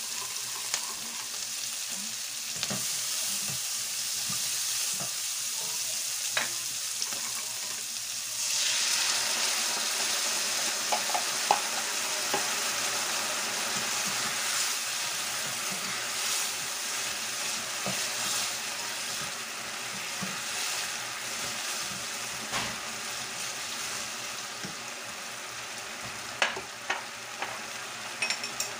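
Sweet-and-sour sauce sizzling in a hot nonstick wok with pineapple chunks and bell peppers while a spatula stirs it to dissolve the sugar. There are a few sharp knocks, and the sizzle gets louder about eight seconds in.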